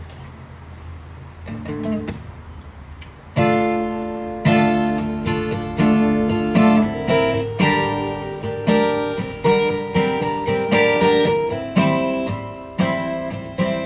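Acoustic guitar: a few soft plucked notes, then from about three seconds in, loud chords strummed about twice a second, each left ringing.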